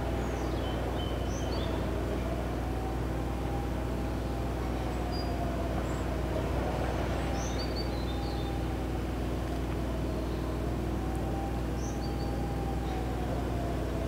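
Hörmann HLS 273 pneumatic high-power siren sounding the 'warning of the population' signal, a tone that slowly rises and falls again and again. It sits over a louder steady, low machinery drone, with a few faint bird chirps.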